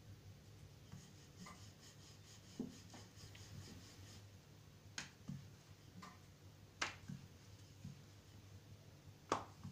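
Wooden rolling pin rolling out flour-dusted paratha dough on a rolling board: faint rubbing and scuffing, with a few sharp clicks and knocks, the loudest near the end, over a faint low hum.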